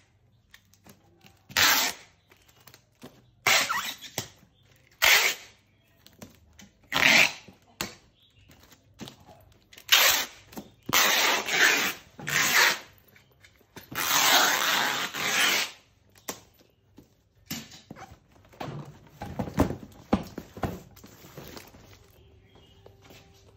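Packing tape being pulled off a handheld tape dispenser onto a cardboard box in a series of loud screeching strips, each a second or so long. Near the end, a marker scratches on the cardboard.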